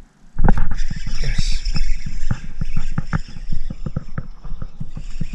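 Spinning reel being cranked fast to bring in a hooked fish: a loud run of rapid clicks and rattles with a hiss over them, starting suddenly about half a second in.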